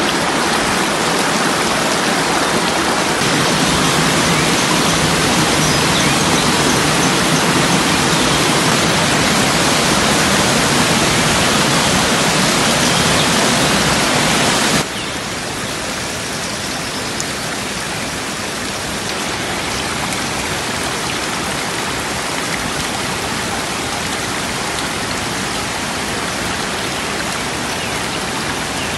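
Running water rushing steadily, an unbroken hiss like a stream. It drops abruptly in level about halfway through.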